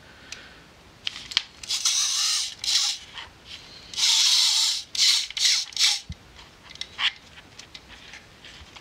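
Hands turning and rubbing a Ricoh Auto Half camera's metal body: several short scraping rustles, with a couple of small clicks as its controls are pressed.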